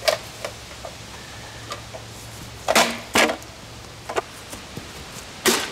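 Golf club hitting a small plastic RCA satellite speaker cabinet: a sharp click just after the start, two loud hits close together about three seconds in, and another hit near the end.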